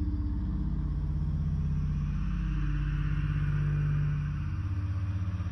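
A low, steady rumbling drone with a faint hiss above it, easing slightly about four seconds in.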